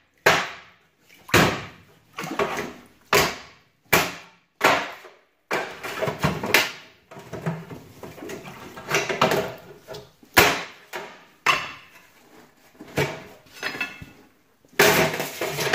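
Metal safe-deposit boxes in a vault wall being pried and banged with a long bar. The result is an irregular series of sharp metal clanks and knocks, about one or two a second, some ringing briefly.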